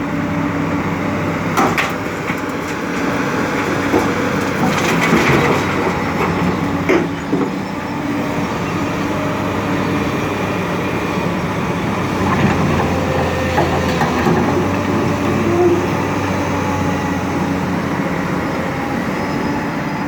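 Excavator's diesel engine running steadily, with scattered knocks and crunching from the bucket working material.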